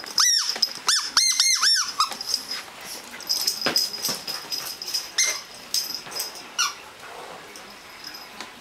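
A rubber squeaky dog toy is squeezed quickly five times, giving a run of identical high squeaks in the first two seconds. Softer scattered taps follow, with one more squeak about six and a half seconds in.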